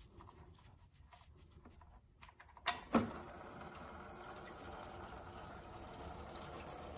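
Two sharp clicks about three seconds in as the oil pan drain plug comes free. They are followed by a steady stream of engine oil pouring from the pan into a drain container.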